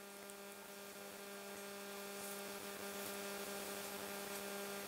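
Steady electrical hum: a low pitched buzz with many even overtones, slowly growing a little louder.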